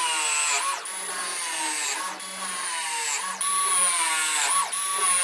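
Small cordless power tool motor running on a pipe, a steady high whine whose pitch sags and recovers about four times.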